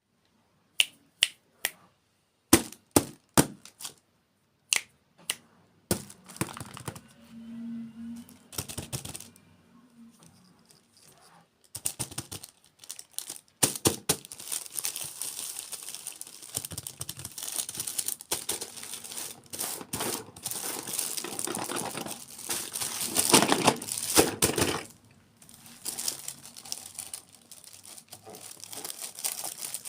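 A run of about nine sharp clicks or taps, then continuous crinkling, rustling and tearing of packaging, loudest past the middle.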